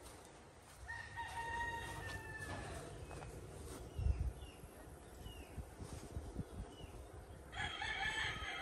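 Two faint rooster crows: one beginning about a second in and held for over a second, and a second, louder crow near the end.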